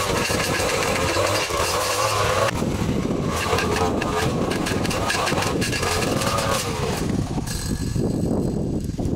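Small engine of lawn-care equipment running steadily. Its sound changes abruptly about two and a half seconds in and again near the end.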